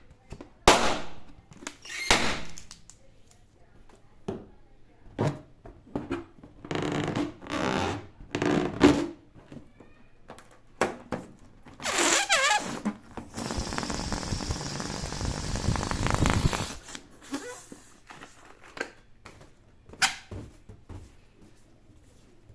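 Balloons popping one after another, sharp pops at irregular intervals, with a short squeaky gliding sound and, about halfway through, a steady hiss lasting a few seconds.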